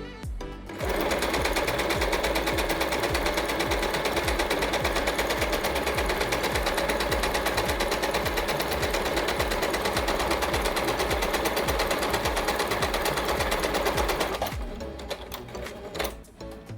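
Yamata digital sewing machine stitching one of its built-in decorative patterns, running at a steady speed with rapid, even needle strokes. It starts about a second in and stops a couple of seconds before the end.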